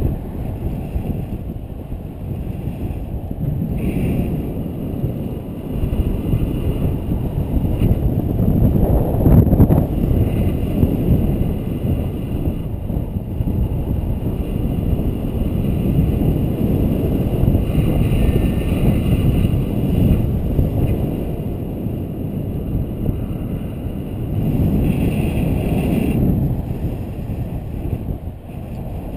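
Wind rushing over the microphone of a paraglider pilot's camera in flight: a loud, low, gusting rumble that swells about a third of the way in and again near the end.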